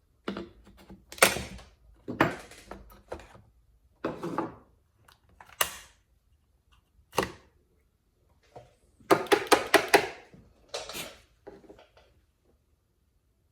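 Hands taking parts off a chainsaw: scattered knocks and clicks of plastic and metal being handled, with a quick run of clicks about nine seconds in.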